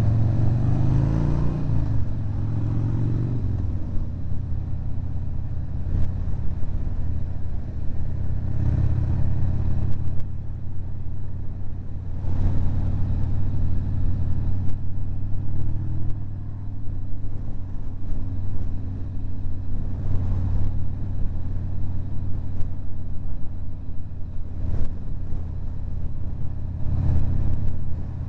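Harley-Davidson V-twin engine running under the rider as the motorcycle rides along, its pitch rising as it accelerates in the first few seconds, then holding a steady low drone. Gusts of wind buffet the microphone from time to time.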